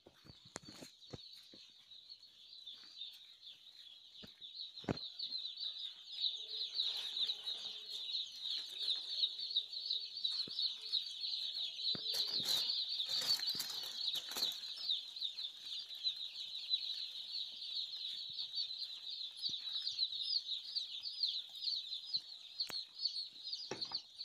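Hundreds of newly delivered broiler chicks peeping together, a dense unbroken chorus of short high cheeps that grows louder over the first six seconds. A few sharp knocks sound near the start and a cluster of knocks and rustles comes about halfway through.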